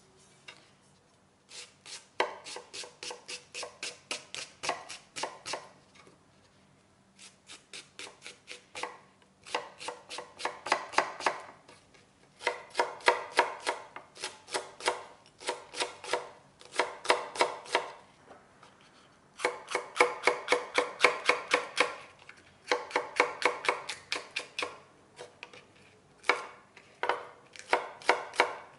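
Kitchen knife chopping a Japanese long onion (naganegi) on a wooden cutting board into a coarse mince: quick runs of knife strikes, several a second, broken by short pauses.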